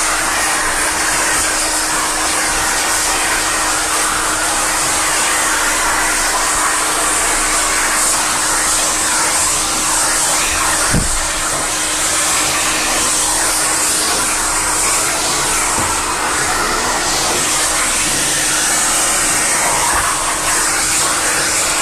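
Dog wash station's blower dryer blowing air through a hose nozzle onto a wet dog's fur: a loud, steady rushing hiss with a faint steady hum under it. There is one brief thump about halfway through.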